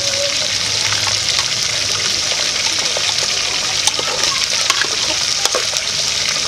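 Vegetable stew sizzling with a steady hiss in a metal pot while it is stirred with a spoon, with light clicks of the spoon against the pot.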